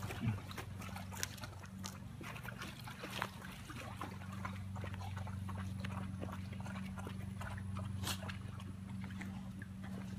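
American bully dogs lapping and sloshing water from a freshly refilled water bowl, with scattered small splashes and licks over a steady low hum.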